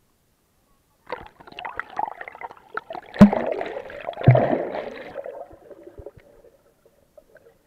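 Pool water sloshing and bubbling heard underwater through a camera's waterproof housing, with handling knocks on the housing and two loud thumps about three and four seconds in. Silent for the first second, fading toward the end.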